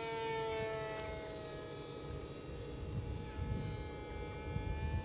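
Electric motor and rear pusher propeller of a WLtoys F959S Sky King foam RC plane whining under power as it climbs away, the pitch sinking slightly as it goes. Low wind rumble on the microphone underneath.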